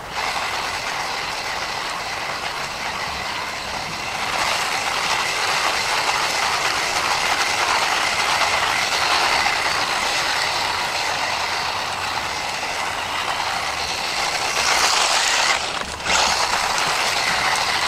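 A DEERC 300e 1/18-scale brushless 4x4 RC monster truck doing donuts: the brushless motor and drivetrain whine steadily over the noise of spinning tyres. It gets louder about four seconds in, cuts out briefly near the end, then picks up again.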